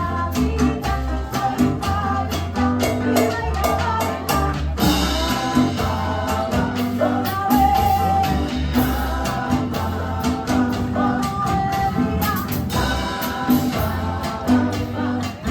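Band music with a steady beat, a strong bass line and a singing voice.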